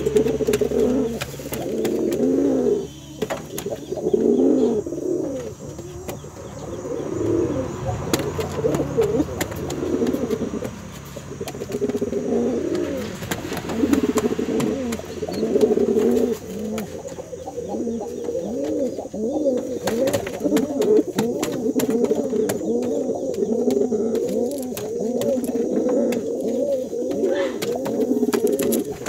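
Male domestic pigeon cooing over and over, a steady run of low rolling coos: a cock calling to his hen.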